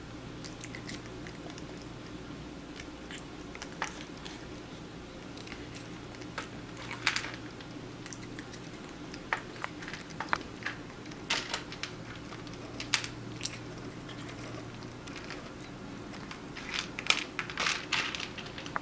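Kitten chewing dry kibble: scattered, irregular crunches and clicks, with a busier run of crunching near the end, over a steady low hum.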